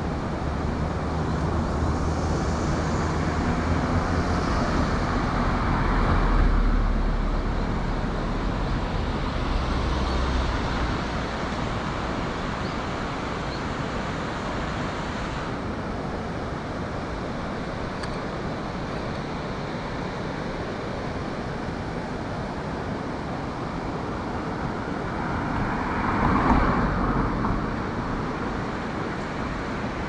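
Steady outdoor traffic noise. A vehicle's engine hum swells and fades over the first ten seconds or so, and another vehicle passes about 26 seconds in.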